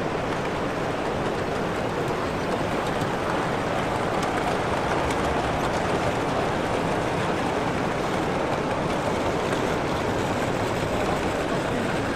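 Steady hubbub of a crowded exhibition hall, an even wash of distant voices and movement with no single sound standing out.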